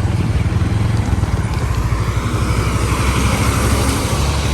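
Motor vehicle engine running with a steady low hum amid road traffic, with a rush of traffic noise that swells and fades in the middle.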